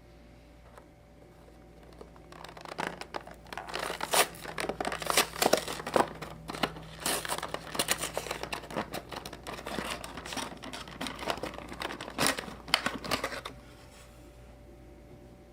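Crinkling and crackling of plastic-and-card toy blister packaging being handled, a dense run of snaps starting about two seconds in and stopping sharply near the end.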